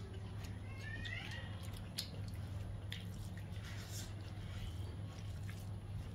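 Eating sounds: fingers mixing rice and curry on a metal plate and mouth chewing, with scattered wet clicks and smacks, over a steady low hum. A short high chirp about a second in.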